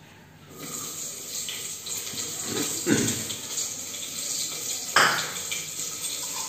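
Cooking oil sizzling steadily in a hot metal pot on a gas stove. A utensil clanks against the pot twice, about three and five seconds in.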